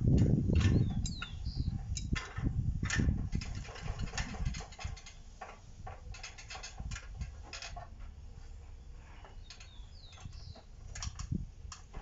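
Steel bar being twisted cold in a bench vise with a Stilson pipe wrench levered by a length of pipe: scattered small metallic clicks and creaks over a low rumbling that is loudest in the first second and again around three seconds in.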